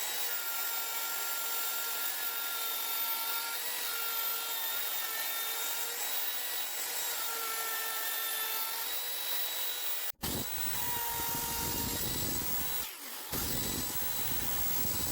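Electric power tool running steadily with a high whine for about ten seconds. It cuts off suddenly, then runs again with a rougher, lower sound, briefly breaking off once more near the end.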